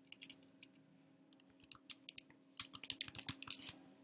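Computer keyboard typing: a few keystrokes, a pause of about a second, then a quick run of keys, over a faint steady hum.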